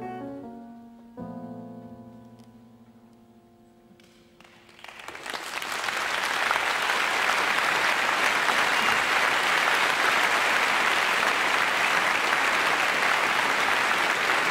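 Solo jazz piano's closing notes and a final chord ring out and fade over a few seconds. About five seconds in, the audience breaks into applause that swells and then keeps on steadily.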